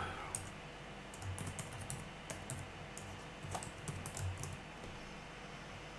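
Faint computer keyboard typing: scattered, irregular keystrokes as a password is entered.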